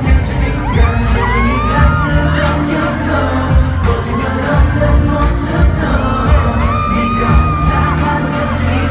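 Live pop song played loud over a concert PA: sung vocals over a heavy bass beat, with fans in the crowd screaming and shrieking over the music.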